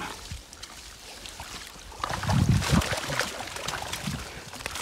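Seine net being hauled out of the water onto a grassy bank: water splashing and sloshing, with wet netting and weed rustling and crackling. It gets louder about two seconds in.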